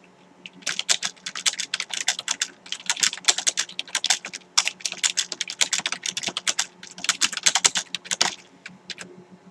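Typing on a Microsoft Comfort Curve 2000's rubber-dome keys: a fast run of key clacks as the keys bottom out. It comes in two runs with a brief break about halfway, and starts about half a second in and stops near the end.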